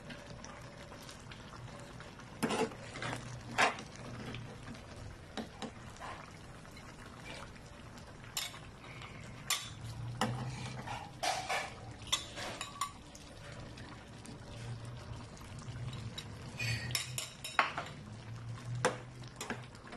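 Metal ladle stirring and scooping stew in a stainless pan, knocking and scraping against the pan and clinking on a ceramic bowl as it is served, with sauce sloshing. Irregular clinks are scattered throughout over a low hum.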